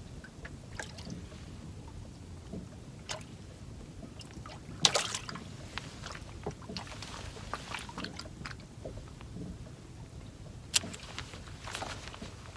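Small fishing boat sitting on the water: a steady low wind-and-water noise with scattered light clicks and two sharp knocks, one about five seconds in and one near eleven seconds.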